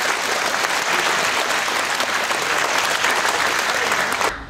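Theatre audience applauding: dense, steady clapping that cuts off suddenly near the end.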